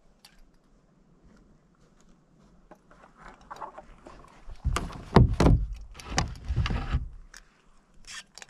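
Knocks, bumps and a heavy rumble from the Sunfish's hull being handled right by the deck-mounted camera, loudest for a couple of seconds in the second half, with a few lighter clicks near the end.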